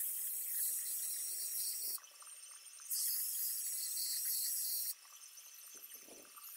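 Makita belt sander grinding the cutting edge of a steel lawnmower blade, a high hissing grind in two passes of about two seconds each, with about a second's break between them, as the blunt edge is sharpened.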